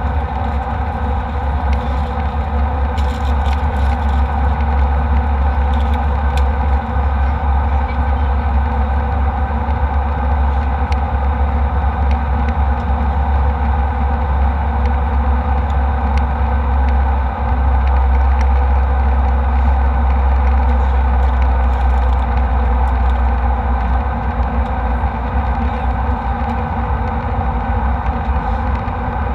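Steady cabin noise of an airliner in flight: a loud low drone of engines and airflow that holds level throughout, with a few faint clicks.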